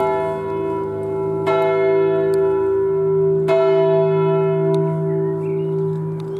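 Church tower bell striking, one stroke about every two seconds, with strokes about one and a half and three and a half seconds in, each ringing on and overlapping the next over a steady low hum.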